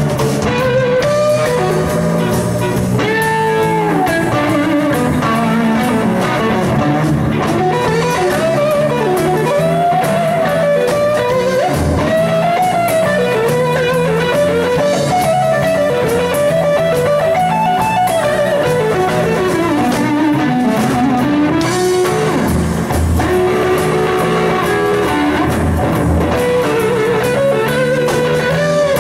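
Electric blues guitar solo over a live band with drums and bass, the lead line full of bent notes that slide up and down in pitch.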